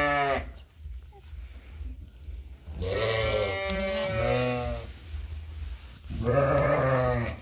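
Arashan lambs bleating: one bleat trails off just after the start, a longer wavering bleat comes about three seconds in, and another comes near the end.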